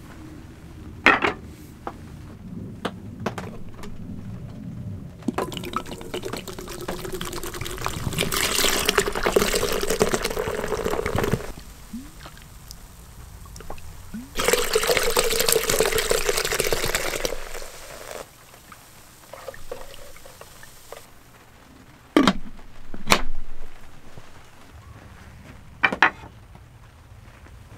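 Tonic water and Earl Grey syrup poured over ice into a steel-lined cup in two long, fizzing pours. Later come a few sharp wooden knocks as a small wooden stand is set down on a slatted wooden table.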